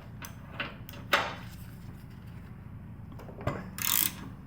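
Hand tools and metal press-tool parts being handled: scattered light clicks, a sharper knock about three and a half seconds in, then a short rasping rub just after, over a steady low hum.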